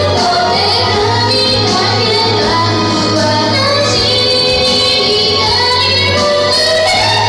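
Young female voice singing over a karaoke backing track, with a steady low hum beneath the music.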